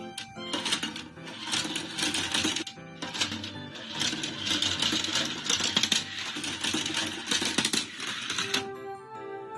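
Rapid, dense clicking and clattering of a small mechanism over background music; the clatter starts about half a second in and stops abruptly about a second before the end, leaving only the music.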